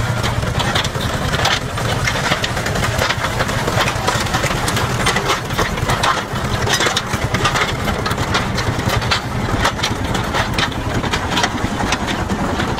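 Vintage tractor engine running steadily at low speed as the tractor drives on big square metal frame wheels. Many irregular sharp metallic clanks and clicks from the wheel frames run over the engine note.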